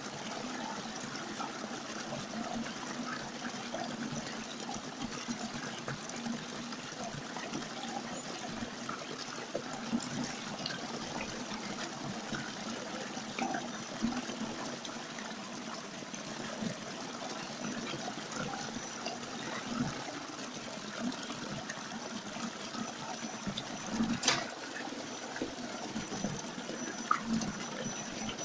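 Small mountain stream splashing steadily down a rocky cascade, with a few sharp clicks and knocks, the loudest about 24 seconds in.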